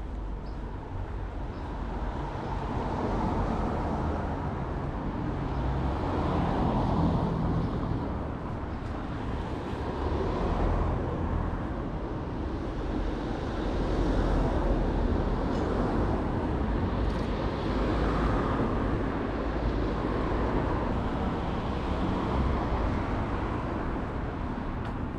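City street traffic: cars passing one after another over a continuous road-noise hum that swells and eases every few seconds.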